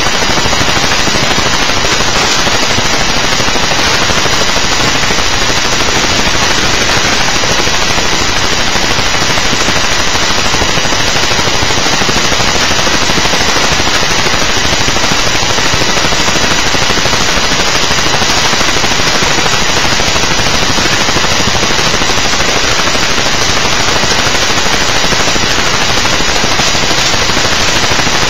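Loud, steady crackling static, an electronic noise fault in the recording rather than a sound in the room.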